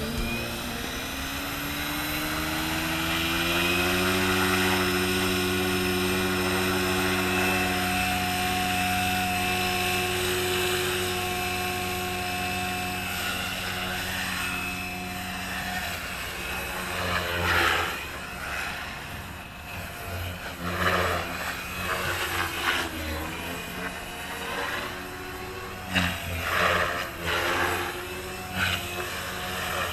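Electric KDS Agile 5.5 RC helicopter's motor and main rotor spooling up, the whine rising in pitch over the first few seconds, then holding a steady hum at head speed. From about halfway on it flies manoeuvres, with the pitch wavering and loud rotor swooshes swelling several times.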